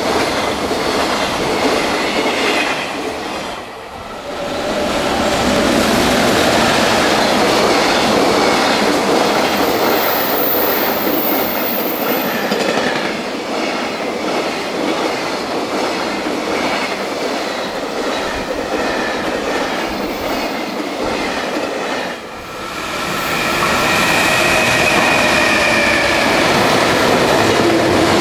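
Freight container trains passing at speed, wagon wheels clattering over the rail joints. The sound dips briefly twice as one train gives way to the next. A faint high whine joins in over the last few seconds.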